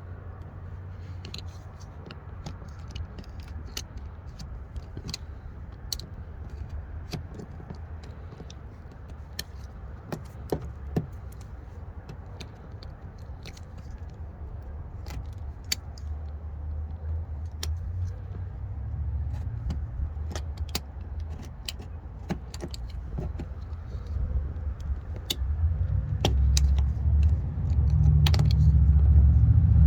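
A low vehicle rumble with scattered light clicks and rattles; the rumble grows louder over the last few seconds.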